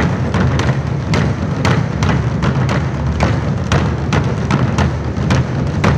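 Ensemble of Korean barrel drums (buk) struck with sticks in a steady, driving rhythm of about four beats a second.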